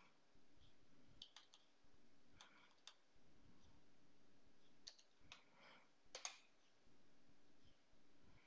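Faint, scattered clicks of computer keys being pressed while a command line is edited, with irregular gaps between them and the loudest cluster about six seconds in.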